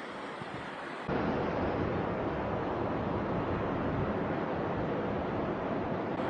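Riding noise from a motorcycle picked up by a 360 camera's built-in microphone: wind buffeting the mic over road and engine noise. About a second in it cuts to a louder recording with much heavier low wind rumble.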